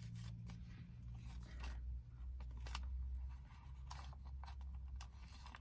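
Handmade paper journal being handled: faint rustles and light taps of paper pages and tags, a handful of times, over a low steady hum.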